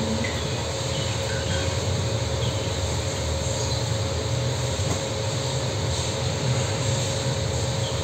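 A steady rushing background noise with a constant mid-pitched hum running under it, unchanged throughout; a few faint short chirps sit on top.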